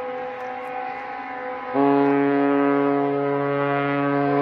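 Ship's horn sounding a long steady blast that fades out. About halfway, a louder, deeper ship's horn starts abruptly, sounding several notes together, and holds.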